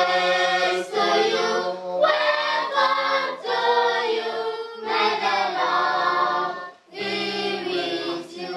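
A small mixed choir of women and children with a man among them, singing together in sustained phrases separated by brief pauses.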